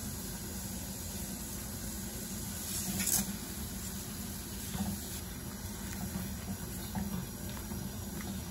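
A pot of water at a rolling boil, a steady bubbling hiss. About three seconds in, a bundle of dry thin noodles goes into the water with a brief, louder splash, and a few small knocks follow as they are stirred.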